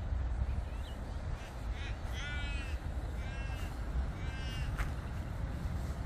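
A crow cawing: three drawn-out harsh caws about a second apart, with a fainter one just before. A steady low rumble runs underneath.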